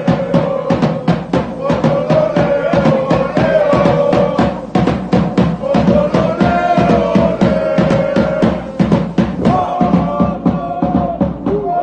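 A drum band playing a fast, steady beat with bass and snare drums, with a held melody line over it that steps up and down in pitch.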